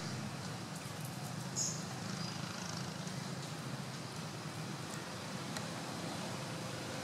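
Steady low background hum, with one short high-pitched squeak about one and a half seconds in and fainter high chirps just after.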